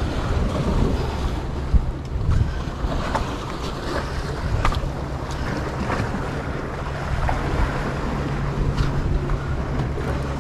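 Wind buffeting the microphone over the rumble of sea waves, with a few scattered clicks and knocks and a steady low hum through the second half.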